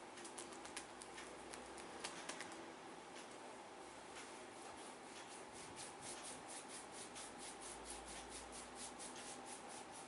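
Quick light tapping of a barber's hands on a man's scalp during a head massage, his hands clasped together as they strike. The pats are uneven at first, then settle about halfway through into a fast, even rhythm of about five to six a second.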